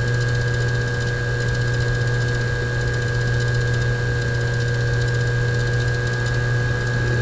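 Steady low electrical hum with a few faint constant higher tones, with no other events: the background room tone of the recording.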